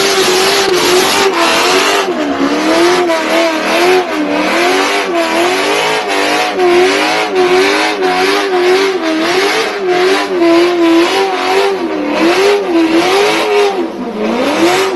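Muscle car doing a burnout: engine revving high while the spinning rear tyres squeal. The pitch wavers up and down about once a second, over a loud hiss.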